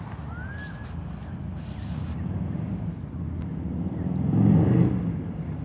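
Low rumble of a passing road vehicle, swelling to its loudest about four and a half seconds in and then fading.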